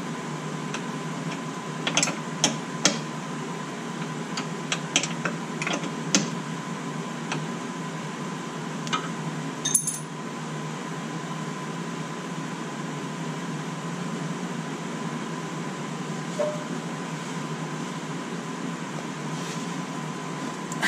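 Metal hand tools clinking and tapping against the brake line fitting and caliper hardware of a front disc brake, in scattered sharp clicks that come thickest in the first half. A steady low hum with a faint high tone runs underneath.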